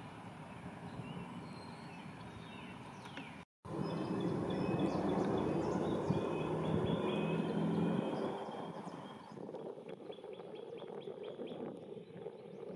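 Woodland songbirds chirping and calling, with a louder stretch of low rustling noise in the middle. The sound drops out for a moment about three and a half seconds in.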